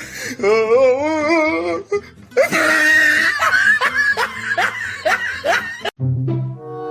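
A person laughing hard in repeated gasping bursts, after a wavering high vocal sound. About six seconds in it cuts to music with low brass notes.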